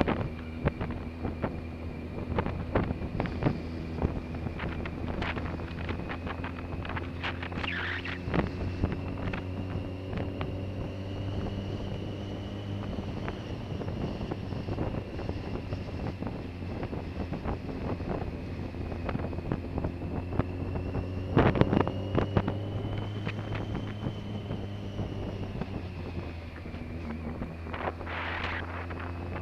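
Motorcycle engine running at a steady cruise with a faint whine whose pitch drifts slowly up and down, under wind buffeting the microphone.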